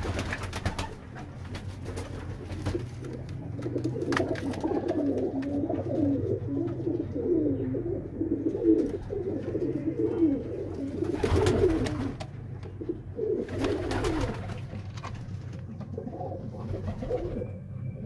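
Domestic pigeons cooing over and over. A few brief rustling noises come near the start and in the second half.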